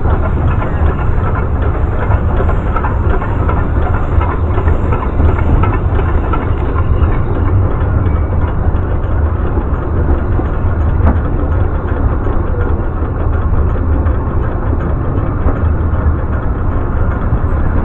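Steady low rumble of a railway train running, with no distinct beat or chuffs.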